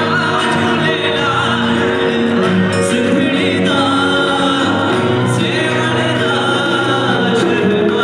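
Live band music: a man singing into a microphone over keyboard and acoustic guitar, amplified through a PA in a hall.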